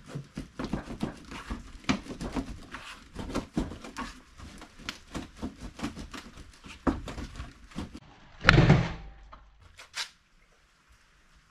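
Plastic fender flare being pulled by hand off a Bronco's wheel arch: a fast run of cracks, pops and creaks as it snaps loose. A louder burst comes about eight and a half seconds in as it comes free, then one last click. It sounds horrendous, but nothing is breaking.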